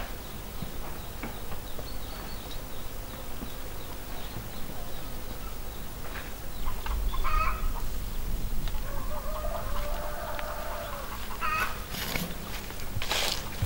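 Domestic chickens clucking, with one longer drawn-out call a little past the middle, and a brief burst of rustling near the end.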